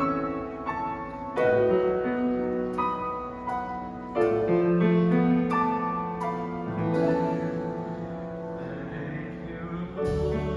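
Piano playing a slow, sustained chordal introduction to a worship song, one chord struck every second or two and left to ring. Near the end, bass and drums come in under it.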